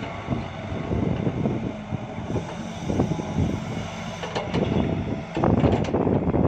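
Sumitomo S265 hydraulic excavator's diesel engine running under load while the bucket digs and lifts earth, with irregular knocks and clatter of the bucket working in the soil.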